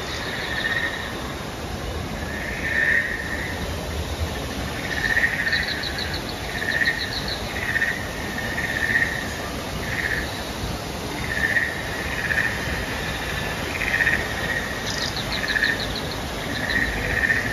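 Chirping calls, like insects or frogs, repeat roughly once a second, with a few short rapid trills about five to seven seconds in and again near fifteen seconds. Underneath runs the steady rush of a small waterfall pouring into a pond.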